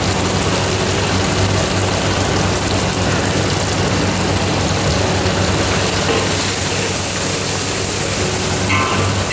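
Steady hiss of a wok of onions and sauce cooking on a stove, with a steady low hum underneath.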